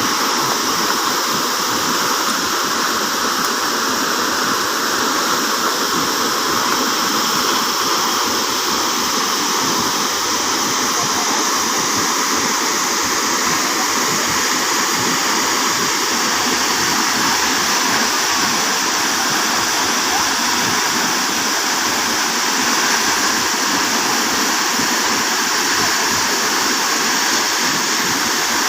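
Waterfall rushing: steady, even water noise, hissy and light in the bass, with no change throughout.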